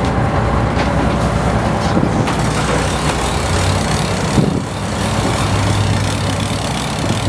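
Fishing boat's engines running steadily under way, a low hum under rushing wind and water noise that grows stronger about two seconds in.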